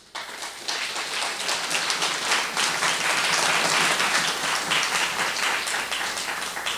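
Audience applauding: dense clapping that starts at once, swells over the first couple of seconds and slowly dies away near the end.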